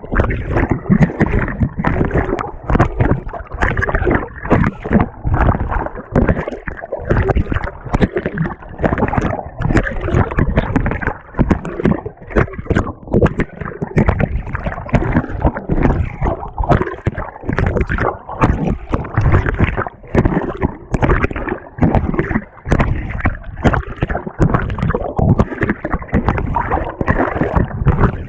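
Water and laundry sloshing and churning in the tub of a GE GTW220ACKWW top-loading washer as the agitator works, heard from a camera fixed to the agitator. Loud, irregular surging splashes with no let-up.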